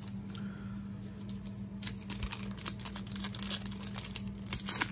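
Foil trading-card pack wrapper being crinkled and torn open by hand, a dense crackle that starts about two seconds in.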